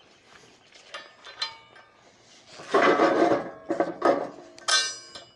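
Steel pallet forks on a tractor loader's fork frame being slid sideways by hand, tipped downward so they move easily: a couple of ringing metal clinks, a scraping slide about three seconds in, then a knock and a loud ringing clang near the end.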